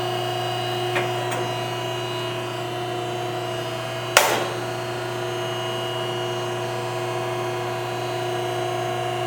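Vertical cardboard baler running with a steady machine hum, with a single sharp knock about four seconds in.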